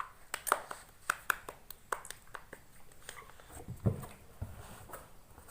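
Small plastic toy vehicles clicking and knocking as they are handled, in irregular light taps, with a brief low sound about four seconds in.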